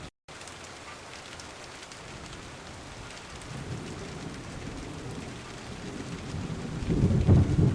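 Heavy monsoon rain falling steadily, with thunder rumbling low underneath and swelling into a loud roll near the end. The sound starts after a brief silent gap at the very beginning.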